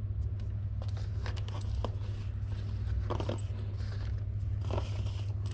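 Handling noise from an electric fishing reel and its power cable: scattered short clicks and rustles as they are picked up and moved, over a steady low hum.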